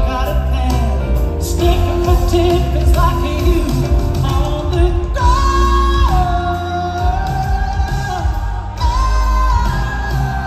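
Live band playing, with a woman singing lead and holding long notes over drums, bass, electric guitars and keyboards.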